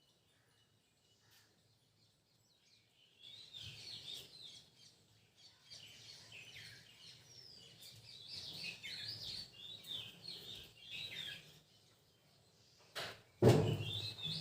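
Small birds chirping and twittering in a busy run of short, quick chirps that starts a few seconds in and thins out after about twelve seconds. Near the end a louder sudden noise cuts in.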